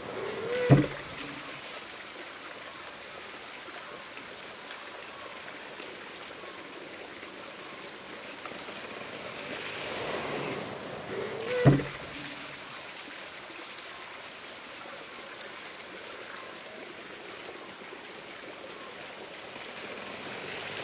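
Water-powered monjolo hammer working: water runs steadily into its wooden trough, and twice, about eleven seconds apart, the trough tips and spills with a rush of water and a short creak, then the wooden hammer drops back with a heavy thud, shortly after the start and again near the middle.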